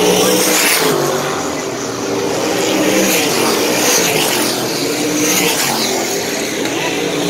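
Winged sprint cars' V8 engines racing past on a dirt oval. The engines make a loud, continuous din, their pitch swinging up and down as the cars come off and back on the throttle and sweeping down as each car goes by.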